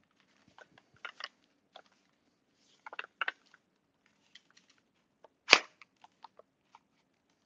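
ASG Scorpion EVO airsoft gun being handled: scattered small plastic clicks and taps, then one loud sharp snap about five and a half seconds in.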